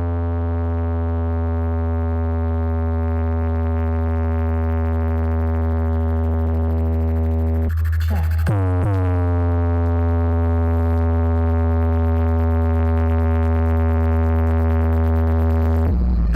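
A deep synthesized bass test tone played loud through a large DJ sound system. It holds one steady pitch with many overtones and sweeps briefly in pitch about halfway through before settling back.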